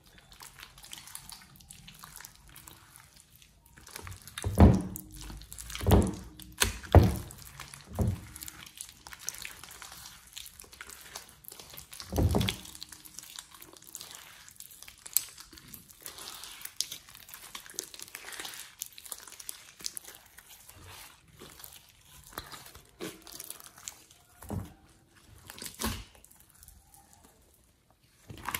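Thick glossy slime being squeezed, stretched and folded by hand: irregular wet squelches and sticky pops. Several louder squelches come between about four and eight seconds in, another about twelve seconds in, and the rest are softer.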